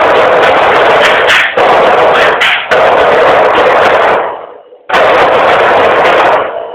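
Percussion ensemble of drums and hand drums playing very loud, distorted by the overloaded recording. The playing dies away about four and a half seconds in, comes back in suddenly, then stops near the end, leaving a faint ringing.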